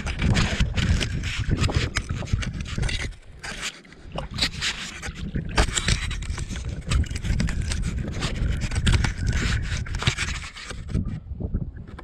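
Rubbing and scraping close to a body-worn camera's microphone, mixed with the splash and slosh of footsteps wading through ankle-deep water, with a brief lull about three seconds in.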